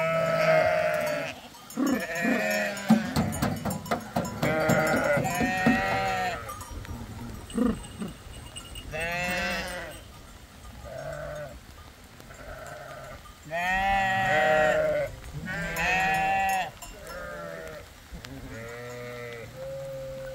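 A flock of sheep and goats bleating over and over, a dozen or more calls overlapping and following one another, some high-pitched and some deep. Clicks and knocks from the jostling animals fill the first half.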